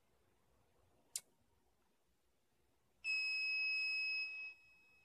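A single sharp click about a second in, then, about three seconds in, a fire alarm control panel's built-in sounder starts a steady high-pitched beep. The beep is loud for about a second and a half, then drops to a faint tone that keeps going. The panel is resetting and lighting all its lamps in a lamp test.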